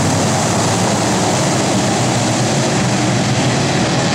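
Engines of a pack of IMCA modified dirt-track race cars running on the track, a loud, steady drone of several V8s at once.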